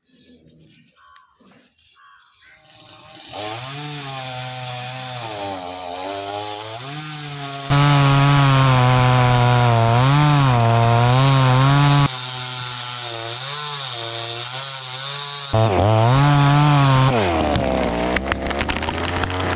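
Two-stroke chainsaw running and cutting wood, starting about three seconds in, its engine note rising and falling with the load. Near the end it drops to a lower, steadier note.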